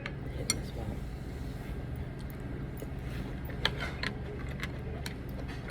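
Close-up eating sounds: a handful of short, sharp clicks and smacks from mouth and utensils, spread irregularly over a steady low background hum.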